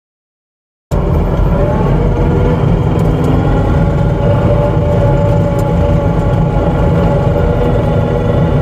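Skid steer engine running steadily with a heavy low rumble. It cuts in abruptly about a second in.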